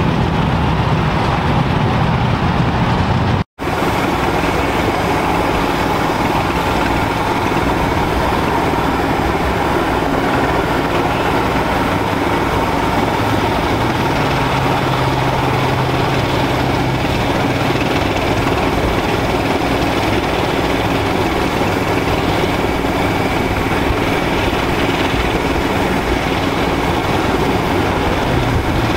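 Steam traction engines running, a steady mechanical hum with hiss and no clear beat. The sound cuts out abruptly for an instant about three and a half seconds in, then goes on unchanged.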